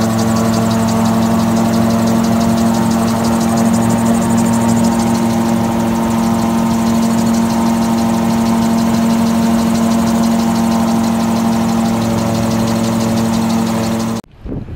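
Gyrocopter's engine and pusher propeller running steadily at high power through the take-off roll and climb-out, a steady drone with a rapid fine flutter over it. It cuts off suddenly near the end.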